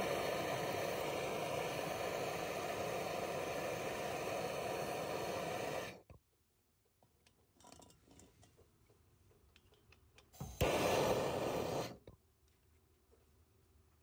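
Handheld gas torch burning with a steady hiss as it heats a copper refrigerant line at an AC condenser's brass service valve for soldering; the flame cuts off suddenly about six seconds in. After faint ticks, a sharp click near eleven seconds brings a second, shorter burst of the same hiss, about a second and a half long, which also stops abruptly.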